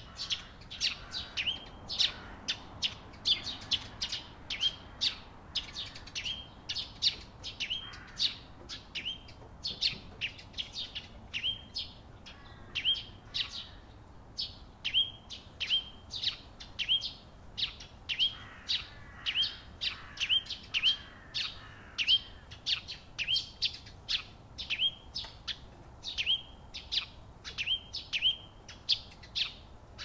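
Eurasian tree sparrows chirping: a steady run of short, sharp chirps, two or three a second.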